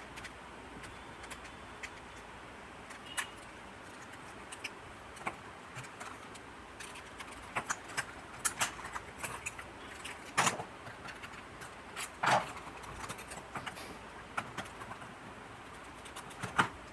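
Scattered clicks and knocks of a plastic torch body and small tools being handled on a workbench, busiest in the middle and again near the end, over a steady background hiss.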